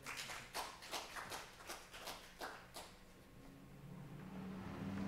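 Scattered clapping from a few people: a few sharp, irregular claps a second for about three seconds. Then a low, steady hum fades in and grows.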